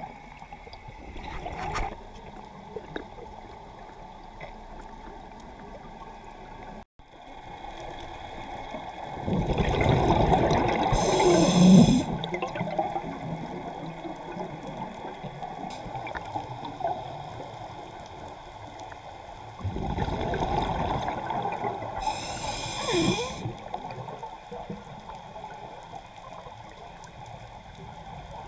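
Scuba diver's exhaled breath bubbling out of the regulator, heard through an underwater camera housing: two bursts of bubbles, each about three seconds long and roughly ten seconds apart, over a faint crackling background.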